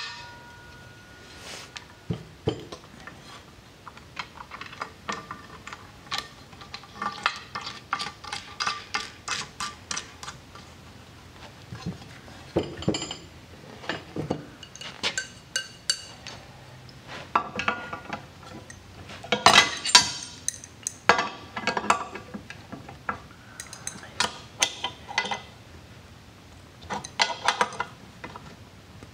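Irregular metal clinks and clatters of wrenches, washers and a nut being handled on a fuel cell fill plate while a dash-8 bulkhead fitting is fitted and its nut tightened with two wrenches. The clatter comes in clusters, busiest about a third and two thirds of the way through.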